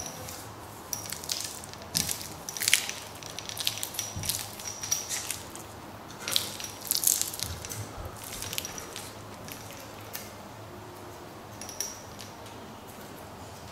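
Plastic wrapping crinkling and crackling as it is handled and peeled off a new stainless steel braided water heater supply line, in irregular spells that die down after about nine seconds.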